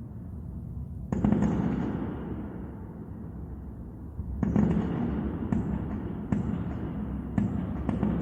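Aerial fireworks shells bursting: one loud bang about a second in, then a run of five bangs from about four and a half seconds on. Each bang trails off in a rolling rumble.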